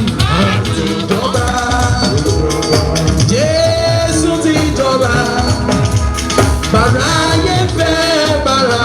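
Church worship music: voices singing a held, gliding melody over drums and percussion keeping a steady beat.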